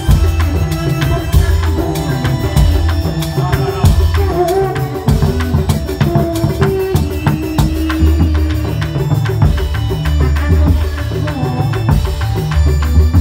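Reog Indramayu dance music: drums and percussion beating a busy rhythm with heavy low strokes, with a melody running over it.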